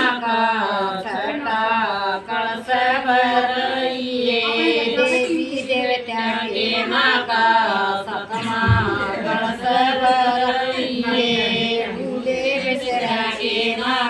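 Group of women singing a traditional wedding folk song together.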